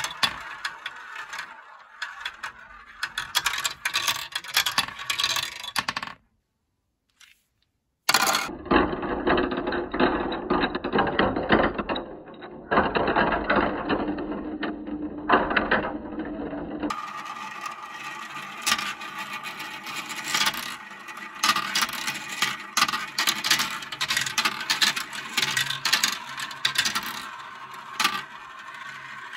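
Plastic balls rolling and clattering through a Kumikumi Slope plastic marble run: a steady stream of clicks, rattles and small knocks as they run down chutes, circle the funnel dishes and drop through the tube pieces. About six seconds in there are roughly two seconds of silence. For several seconds after that the clatter sounds duller.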